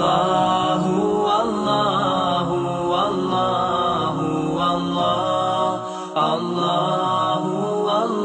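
Background soundtrack of melodic vocal chanting, with long notes that glide up and down and no spoken words.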